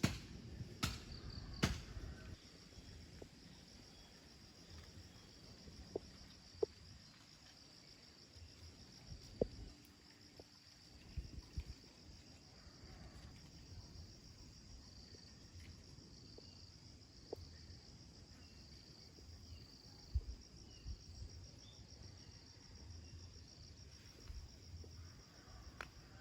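Insects trilling steadily in a continuous high-pitched chorus, faint, with a few short soft knocks scattered through it.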